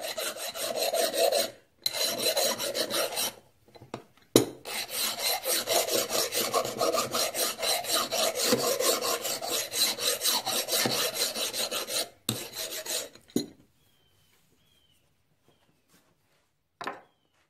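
Quick back-and-forth scraping of a hand-held abrasive over a steel engine connecting rod, cleaning it up for primer. It comes in a few short runs and then one long steady run, and stops about four seconds before the end.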